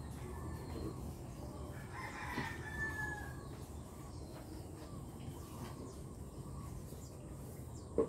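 A rooster crowing once, about two seconds in, over a steady low background rumble. A short sharp knock near the end.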